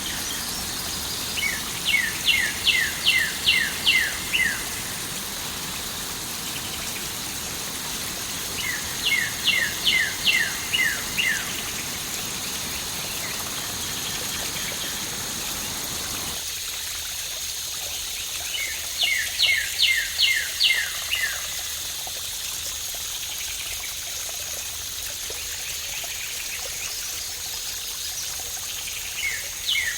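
Steady rush of running water from a waterfall or stream. A songbird repeats the same short song of about seven quick, evenly spaced notes three times, and the lower, deeper part of the water sound cuts out suddenly about halfway through.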